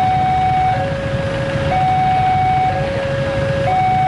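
Railway level-crossing warning alarm sounding its two-tone electronic signal, a higher and a lower tone alternating about once a second, warning that a commuter train is approaching. Underneath is a steady rumble of idling motorcycles and minibuses.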